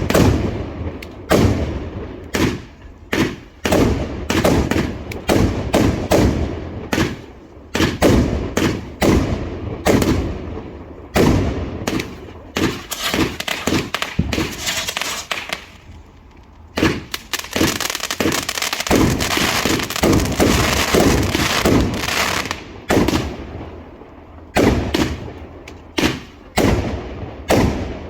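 Large fireworks display: a rapid, irregular series of loud bangs from shells and cakes going off. A dense stretch of continuous crackling fills the middle of the barrage.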